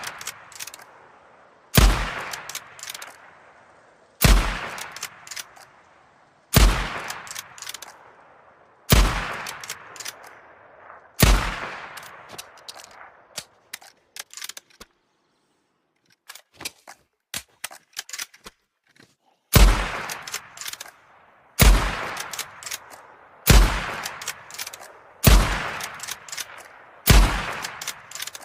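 Ruger M77 Mark II bolt-action rifle firing single shots, about one every two seconds, each sharp report followed by a decaying echo. Five shots come, then a pause of several seconds with a run of light metallic clicks, then five more shots.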